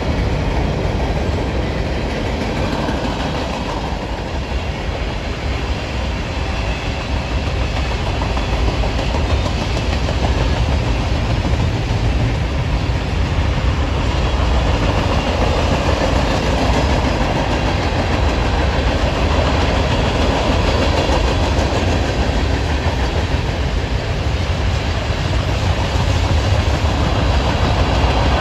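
Mixed freight cars (covered hoppers, tank cars, boxcars, gondolas) of a long freight train rolling past, the steel wheels on the rails making a steady, heavy rumble that grows a little louder near the end.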